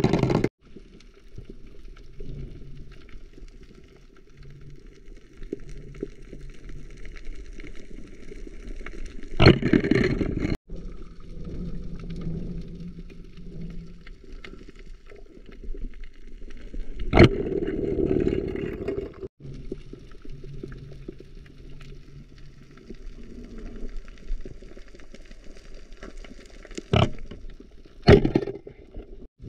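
Muffled underwater noise picked up by a camera in a waterproof housing on a spearfishing dive. Sharp knocks come about 9, 17, 27 and 28 seconds in, and the first two are each followed by a second or two of louder water noise.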